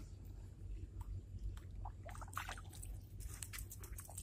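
Handling noise from a phone camera being moved about: a sharp knock at the start, then scattered rubbing and scratching over a low steady rumble.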